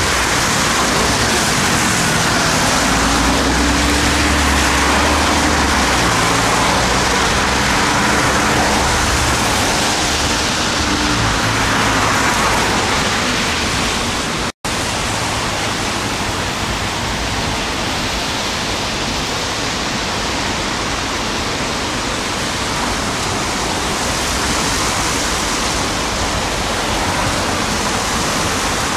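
Steady hiss of tyres on a rain-wet city road, with the low hum of passing car and bus engines through roughly the first twelve seconds. The sound drops out for an instant at an edit about halfway through, then the even hiss carries on.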